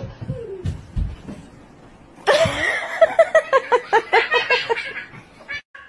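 A person laughing in a quick run of short ha-ha pulses, about five a second, starting about two seconds in and lasting about three seconds.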